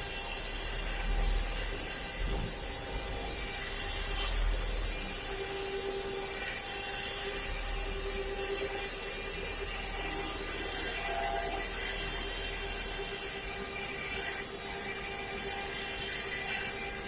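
CNC stone/wood carving machine's spindle running steadily, a high hiss over a steady hum.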